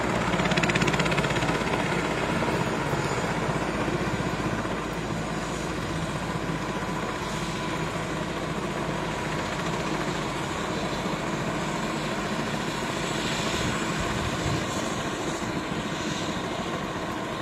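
Helicopter running on the ground just after landing, its main rotor turning with a steady rapid beat.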